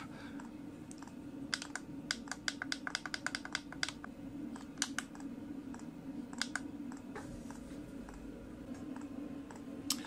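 Rapid clicking of the push buttons on a Chinese diesel heater's LCD controller as the up button is pressed over and over to raise the target temperature, with the clicks bunched together for a couple of seconds and a few more after. Under them, the heater runs with a steady low hum.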